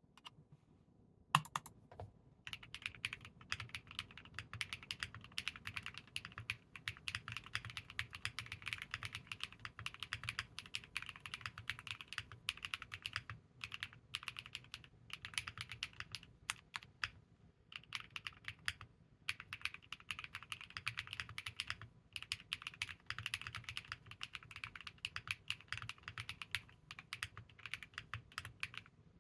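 Typing on a Moeetech Glitter65 mechanical keyboard with lubed MMD Princess switches and KPRepublic Ghost Judge keycaps. There is a single sharp click about a second in, then fast, continuous keystroke clacks broken by a few short pauses.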